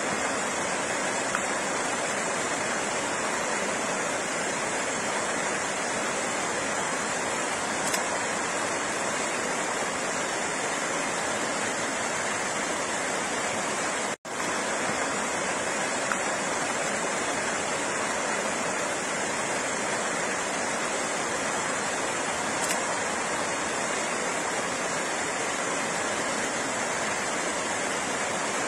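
Flowing water rushing steadily, an even unbroken wash of noise, with a split-second dropout about halfway through.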